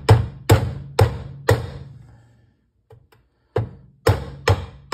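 Hammer blows on a pin punch driving the roll pin out of the gas block of a Remington Model Four rifle held in a gun vise. There are four sharp strikes about two a second, each ringing briefly, then a pause of about two seconds, then three or four more at the same pace.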